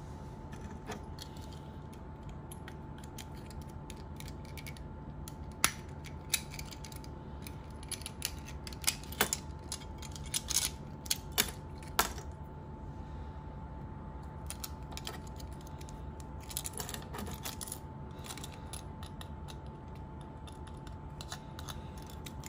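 Small scattered clicks and clacks of a Hot Wheels die-cast car being pulled apart by hand with its rivets drilled out: the metal body, clear plastic window piece and plastic base knocking and snapping against each other, busiest in a cluster about eight to twelve seconds in.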